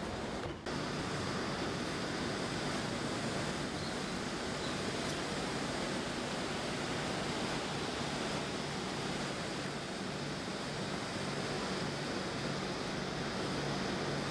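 An air conditioner running close to the microphone: a steady, even rushing noise with a faint low hum under it. It briefly drops out about half a second in.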